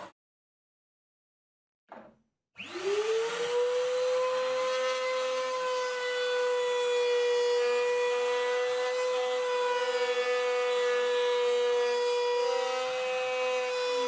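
Router mounted in a small router table starting up about two and a half seconds in, after silence and a short noise, and running at a steady high whine. The bearing-guided bit is routing the edge of a plywood push-block handle.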